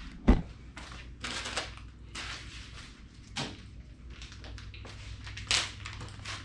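Handling noises: a sharp thump just after the start, then scattered knocks, clicks and rustles of parts being handled, over a steady low hum.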